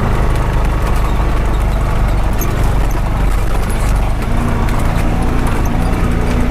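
Honda Pioneer 520 side-by-side driving along, its single-cylinder engine running steadily under the drone of the ride, with scattered small clicks and knocks.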